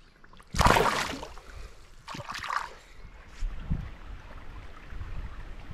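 Water splashing as a bass is released from a kayak and kicks free of the hand about half a second in, with a second, smaller splash about two seconds in. Low wind rumble on the microphone follows.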